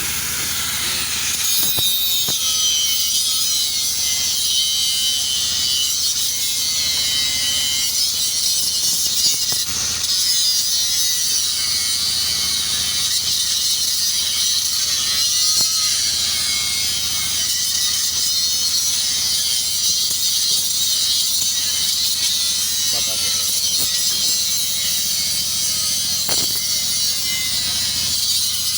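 Welding on a propeller nut: a steady, unbroken hiss and crackle of the weld running.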